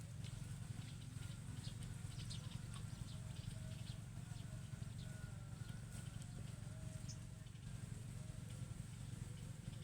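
Steady low rumble, like wind on the microphone, with faint high chirps and clicks and a faint, distant wavering call in the middle.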